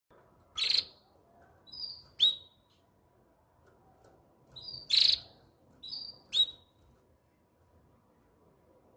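Agitated canary giving short, sharp calls and chirps in two bursts, each of about three calls. The harshest call of each burst comes about 0.7 s and 5 s in.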